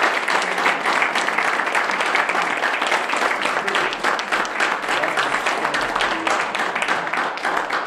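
Audience applauding: many hands clapping, steady throughout.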